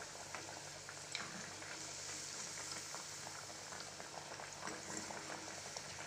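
Red aval (poha) vadas deep-frying in hot oil: a steady bubbling sizzle dotted with many fine crackles.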